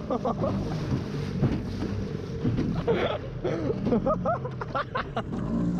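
Small two-stroke outboard, a 4 hp Johnson, running steadily at speed and pushing a small aluminium boat through choppy water. Water rushes past the hull, with many short slaps of chop against it, and wind buffets the microphone.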